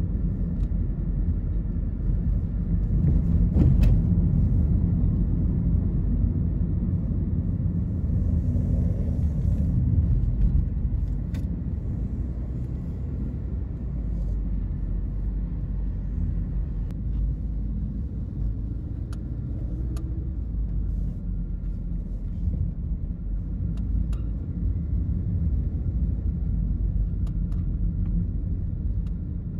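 Road noise heard from inside a moving car: a steady low rumble of tyres and engine, growing a little louder a few seconds in.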